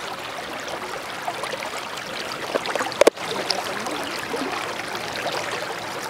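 Steady rushing of flowing river water, with a single sharp click about halfway through.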